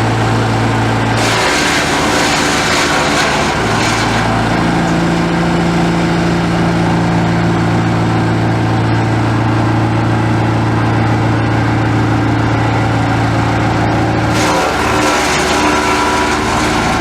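Engine of a Polexim GTS-1500E wood chipper running steadily at speed. Twice, about a second in and again near the end, a loud rushing, crackling burst of chipping comes in while the engine note drops and wavers under load, as branches are fed into the knives.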